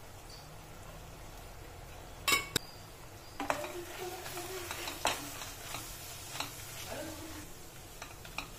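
Wooden spatula stirring and scraping masala into onions and tomatoes in a metal pressure cooker, in a run of strokes against the pot. Two sharp knocks on the cooker, about two seconds in, are the loudest sounds.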